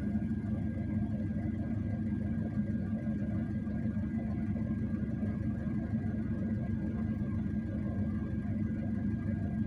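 Steady low rumble of an idling motor vehicle, with a faint steady high whine over it.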